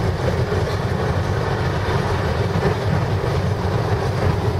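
Steady low rumble of road and engine noise inside the cabin of a car moving at speed.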